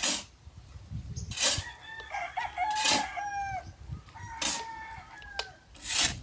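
Rooster crowing, with a clucking call, over short raspy strokes that repeat about every one and a half seconds and are the loudest sounds.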